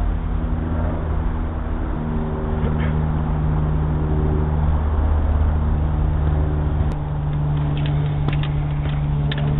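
A motor vehicle engine running steadily, its pitch stepping up about two seconds in, heard through a doorbell camera's thin microphone. A few faint clicks come near the end.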